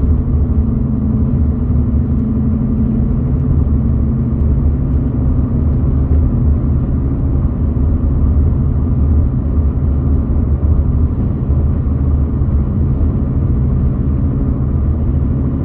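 A car driving at highway speed: a steady low rumble of road and engine noise, without breaks.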